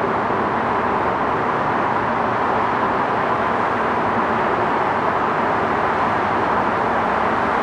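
Electric passenger train on the New Haven Line, a steady running rumble and hiss that holds at one level without rising or falling.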